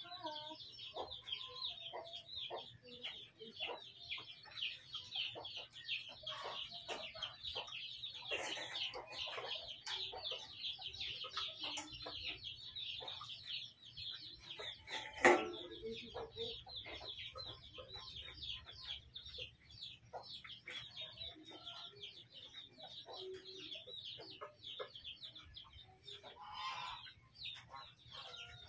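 Chicken clucking in short calls over a dense, high, rapid chirring. A single sharp knock about fifteen seconds in is the loudest sound.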